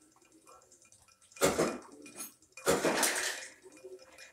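Two short clattering rattles of hard objects knocking against a glass bowl of water, about a second apart, the second one longer.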